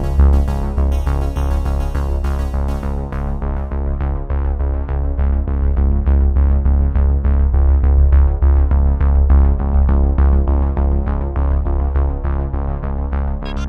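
Electronic background music: synthesizer over a steady beat with a heavy bass, its bright upper layer dropping out a few seconds in and returning near the end.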